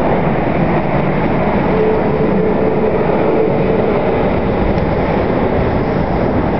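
Airbus A380's four Engine Alliance GP7200 turbofan engines, a loud, steady jet rumble as the airliner banks away overhead, with a faint steady tone for a couple of seconds in the middle.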